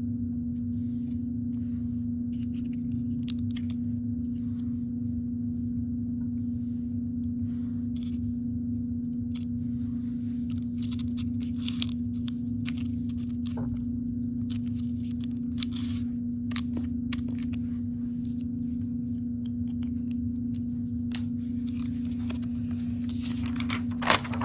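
A steady low hum throughout, under soft scraping and tapping as foam shapes and a glue stick are handled on a cardboard printing plate. A sharp click comes near the end.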